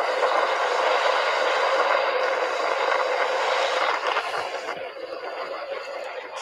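Hurricane storm wind and driving rain in a steady, loud rushing noise, easing slightly about four to five seconds in.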